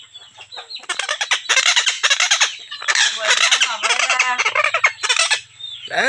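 Caged parrots squawking and screeching in a rapid, harsh string of loud calls, typical of birds squabbling. The calls start faint, grow loud about a second in and ease off briefly near the end.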